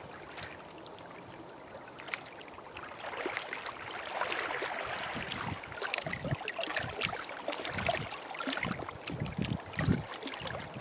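Small waves on a choppy lake lapping and splashing against the shore at the water's edge. Irregular slaps come more often in the second half.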